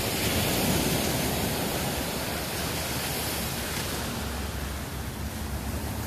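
Ocean surf breaking and washing up a sandy beach: a steady rushing of waves. A faint low hum joins about two-thirds of the way through.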